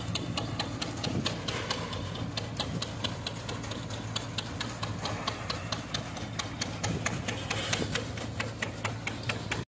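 Engine-driven peanut (groundnut) cleaning machine running: a steady low engine hum under a regular mechanical clatter about four to five times a second.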